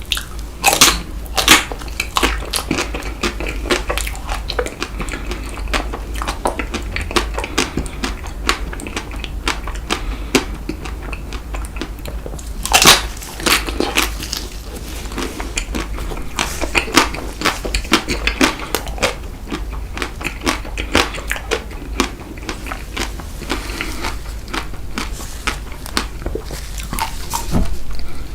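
Close-miked eating of chocolate-coated ice cream bites: steady biting and chewing with the chocolate shell crackling and crunching. Louder bites come about a second in and again near the middle.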